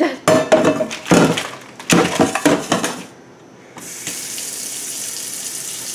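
A few clatters and knocks of things being handled, then the kitchen tap is turned on about four seconds in and water runs steadily from the faucet.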